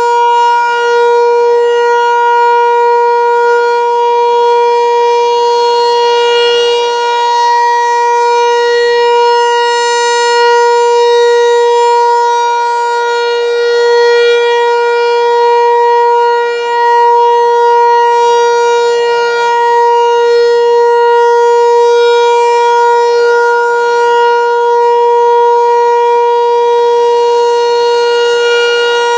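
American Signal Tempest T-128 outdoor warning siren sounding during its monthly test, loud and holding one steady pitch with no rise or fall.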